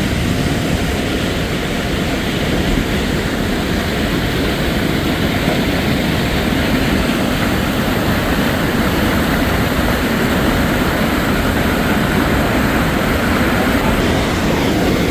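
Sheep River Falls' waterfall rushing: a steady, loud noise of falling water, heaviest in the low end.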